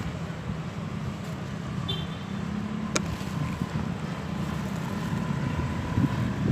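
Steady low rumble of wind buffeting the microphone outdoors, with one sharp click about three seconds in.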